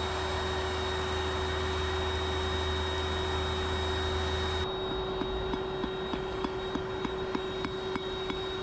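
Electric forge blower running with a steady rush of air and a low hum. Just past halfway the hum cuts out and the air noise thins, and faint irregular ticking follows.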